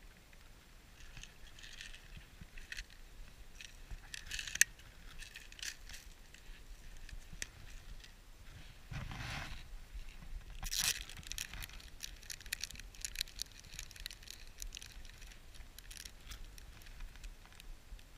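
Hands handling small fishing tackle: light clicks, scrapes and rustling from a plastic tackle box, a hook and a plastic bait packet, with one sharp click about four and a half seconds in and busier crackling in the second half.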